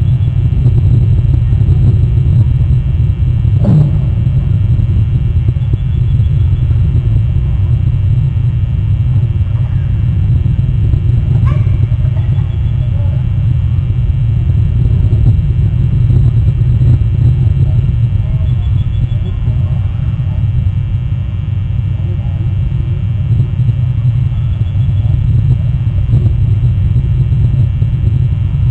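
Steady low rumble of wind buffeting an outdoor camera microphone, loud and unbroken, with a brief faint sound about four seconds in.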